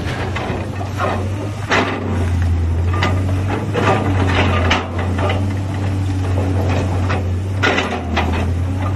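Hydraulic concrete pulverizer jaws on a large excavator crushing concrete, with irregular cracks and knocks of breaking concrete over the steady low hum of the excavator's diesel engine.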